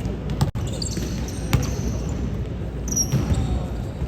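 Basketball bouncing on a hardwood gym court during play, a few sharp separate bounces over the hall's background hubbub, with short high squeaks of sneakers on the floor.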